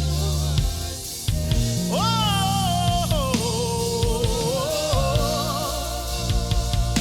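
Live gospel worship music: a band with drum kit and keyboard playing through a gap between the song's lines, with a held, wavering sung note from about two seconds in.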